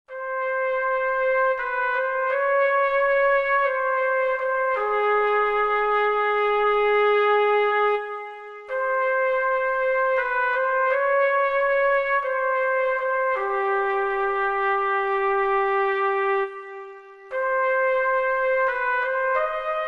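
Music: a brass melody, trumpet-like, played in two phrases of short and held notes, each ending on a long sustained note followed by a brief pause.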